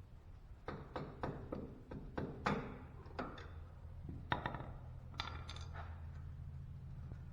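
Hand tools clicking and tapping against the metal hose clamp on a steering rack boot as it is broken off: about a dozen sharp metallic clicks, some ringing briefly, over a steady low hum.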